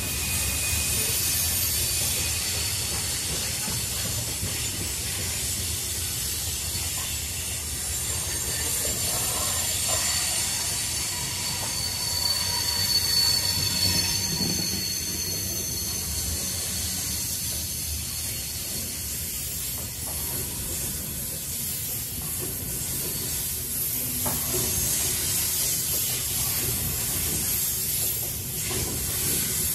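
Railroad cars rolling slowly through a rail yard, their steel wheels squealing against the rails in thin high tones over a low rumble, the squeal loudest about halfway through.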